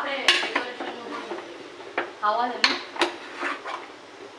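Metal ladle stirring chopped vegetables in an aluminium pressure cooker, clanking and scraping against the pot's side in irregular knocks.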